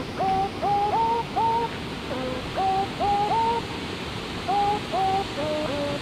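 Steady rush of a waterfall under a repeating series of short hooting notes, each rising and then holding, mostly in pairs, with lower notes in between.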